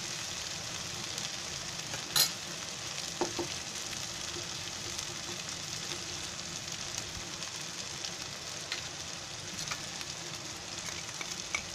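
Oil sizzling in a pan of onion-tomato masala, with cumin seeds just added to it: a steady frying hiss. There is one sharp tap about two seconds in, and a few faint ticks later.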